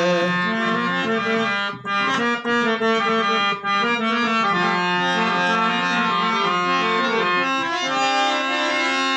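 Harmonium playing a melodic instrumental interlude of a Gujarati devotional bhajan: a sequence of sustained reed notes with a short break about two seconds in.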